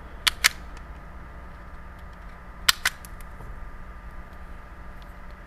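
Self-adjusting wire stripper snapping shut and releasing as it strips insulation off the wire ends: two sharp clicks close together near the start, then another sharp click about two and a half seconds later.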